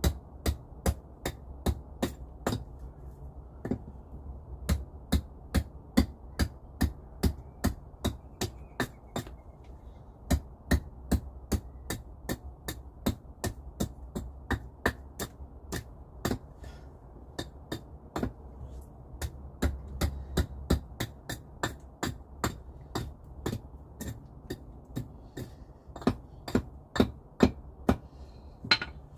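Repeated sharp knocks of wood being struck, about two a second, in runs broken by short pauses.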